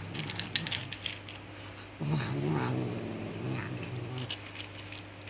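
Angry male cat giving a low, drawn-out growling yowl that starts about two seconds in and lasts about two seconds, a warning against being touched. A few sharp clicks come in the first second.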